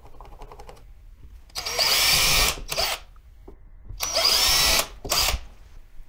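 Power drill boring into the wall twice, each run lasting about a second and ending with a short extra burst, as holes are drilled for the remote's mounting backplate.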